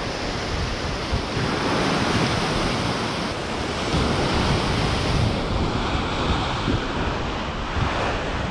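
Ocean swell surging and breaking against a rocky shoreline, a continuous wash of surf that swells and eases, with wind buffeting the microphone.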